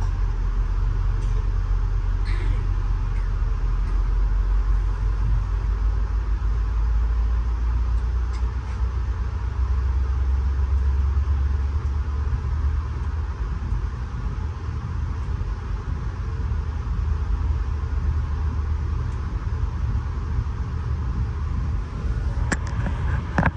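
Ride noise inside a Bud-built stainless steel passenger coach rolling along the track: a steady low rumble of the wheels on the rails and the car body, with a few faint clicks near the end.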